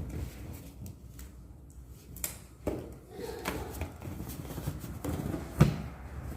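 Scattered handling clicks and knocks, with a sharp knock about five and a half seconds in.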